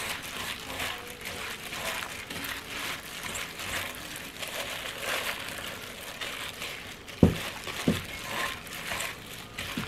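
Plastic food-prep glove crinkling as a gloved hand squeezes and mixes seasoned eggplant in a stainless steel bowl. Two dull knocks come about seven seconds in, half a second apart.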